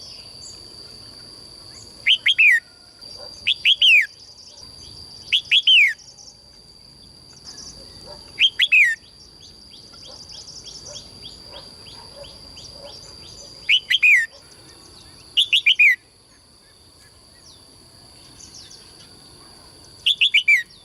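A caged songbird calls in short, loud bursts of two or three quick notes, each note sliding downward in pitch, about seven times with irregular pauses. A softer run of rapid high notes comes near the middle. A steady high-pitched whine sounds underneath throughout.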